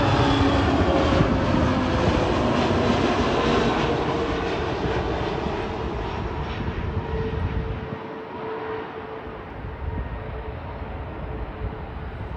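Jet engines of an Airbus A320-family airliner on final approach, passing low: a loud rush with a whine that glides down slightly, fading over the following seconds as the plane moves away.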